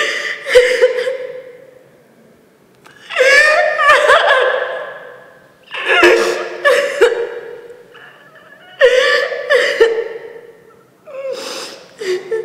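A woman laughing in five bouts, each a second or two long, with short pauses between them.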